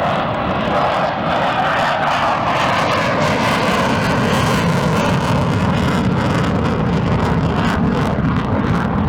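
Display aircraft flying past with a steady, loud engine drone that slowly drops in pitch.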